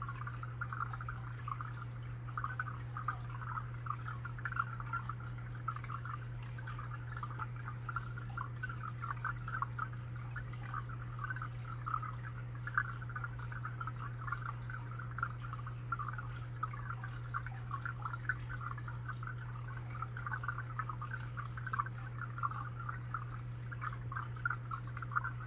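Aquarium water bubbling and trickling without a break, a dense fine crackle, over a steady low hum.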